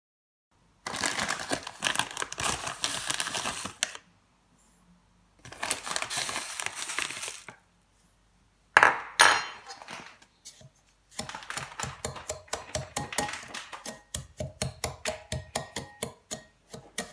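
Kitchen preparation sounds: bursts of rustling and crinkling, a sharp clink about nine seconds in, then a long run of quick, regular taps of a utensil against a bowl.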